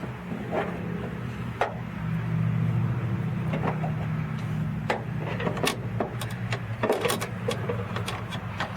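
Scattered clicks and knocks of metal and plastic door-handle and lock-mechanism parts being pulled and worked loose inside a car door, over a steady low hum.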